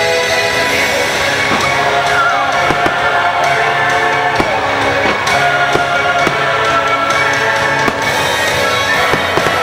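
Fireworks show music playing loudly over loudspeakers, with the sharp bangs of fireworks bursting through it several times.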